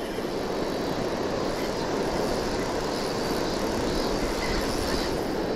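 Steady rushing of a fast, shallow river flowing over stones and riffles.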